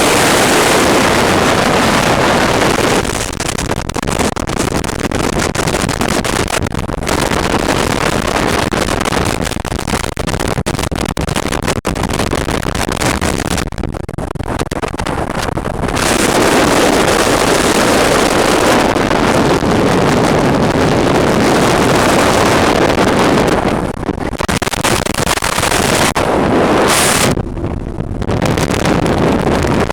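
Wind buffeting the microphone on a moving boat: a ridiculously loud, gusty rush that dips for a moment several times and covers any engine or water sound.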